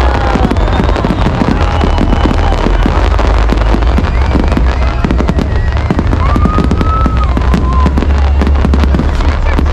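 Fireworks display in a rapid, continuous barrage of bangs and crackling over a deep rumble, with a few whistling tones gliding through it.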